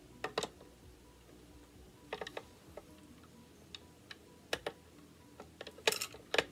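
Locking pliers clicking and tapping against the steel of an SKS rifle's receiver as they are worked onto the receiver cover pin: scattered sharp metal clicks, some in quick little clusters.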